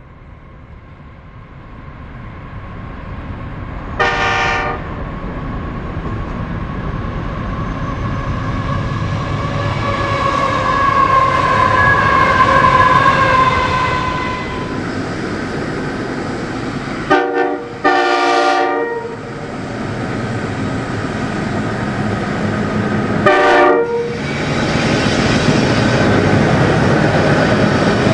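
Nathan five-chime K horn (model K-5UL-AU-LS, five bells bored out for a low tone) sounding its chord from a diesel freight locomotive: a short blast about 4 s in, a short blast then a longer one around 17 to 19 s, and another short blast near 23 s. Between the blasts the train's running noise builds as it draws near and passes.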